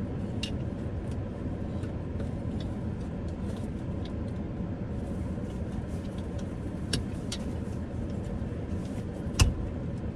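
Steady hum of a car's engine and air conditioning heard inside the cabin, with a few light clicks and one sharp click-knock near the end as a purse hook is fitted onto the seat.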